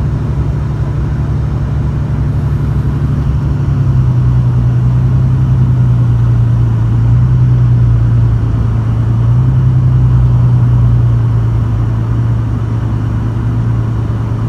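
An engine running steadily with a strong low hum that shifts up and down in pitch a few times.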